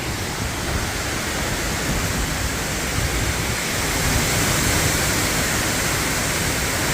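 Strong storm wind rushing steadily and buffeting the microphone with a low rumble, growing a little louder about halfway through.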